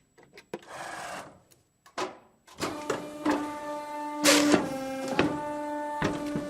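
Printer at work: a few clicks and a short rushing noise, then from about two and a half seconds a steady motor whine with clicks every half second or so, fading out at the end.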